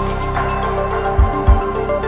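Background music: held chords over a steady beat, with two deep drum thumps in quick succession just past halfway.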